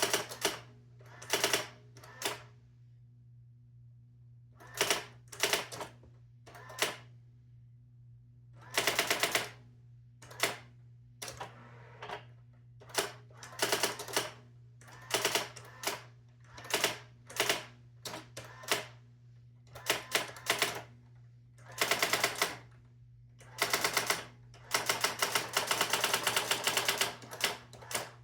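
Brother GX-6750 electronic daisywheel typewriter printing as it is typed on: quick runs of sharp clicking strikes, word by word, with short pauses between, and the longest unbroken run near the end.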